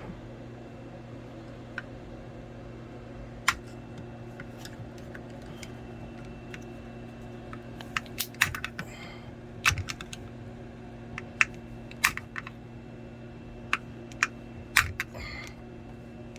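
Scattered sharp clicks and taps of small hard plastic and metal parts being handled, bunched in the second half, over a steady low hum.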